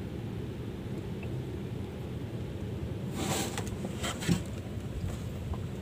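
A boat engine running steadily with a low hum. About three seconds in come brief scraping rustles, ending in a sharp knock.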